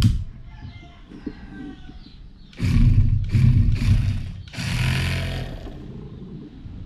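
Small geared electric motor of a homemade RC model tractor spinning its rotavator, starting about two and a half seconds in as three quick bursts and then one longer run of a bit over a second.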